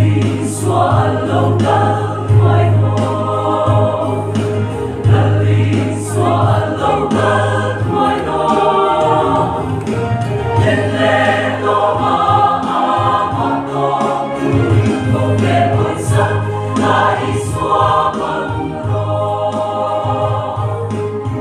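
Large mixed choir of men and women singing a gospel hymn in Mizo, in several voice parts.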